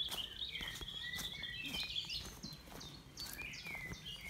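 A songbird singing a long, warbling phrase for the first two seconds or so, with more short notes near the end, over scattered light footsteps on a woodland dirt path.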